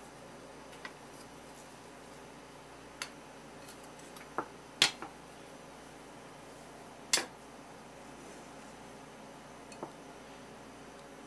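A small ceramic dish handled on a wooden board: a few scattered knocks and taps, the two loudest about five and seven seconds in, over a faint steady hum.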